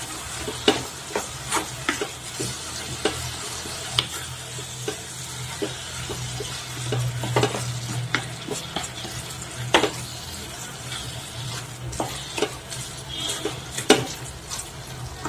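A spatula stirring chopped onion and tomato frying in oil in a small non-stick kadai: irregular scrapes and taps against the pan over a low steady sizzle, as the tomatoes cook down.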